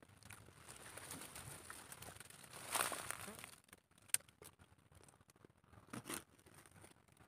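Leafy stems and dry plants rustling and crackling as someone pushes through dense brush. Loudest about three seconds in, then a few scattered snaps.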